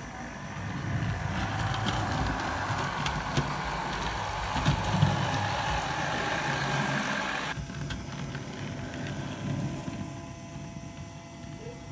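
Model railway trains running on the layout's track: a steady mechanical rumble with scattered sharp clicks. The higher part of the noise cuts off suddenly about seven and a half seconds in.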